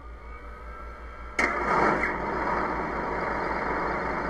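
The Tamiya M551 Sheridan RC tank's onboard sound unit playing a simulated engine start through its small speaker. A faint rising starter whine is followed, about a second and a half in, by the engine catching suddenly and settling into a steady idle.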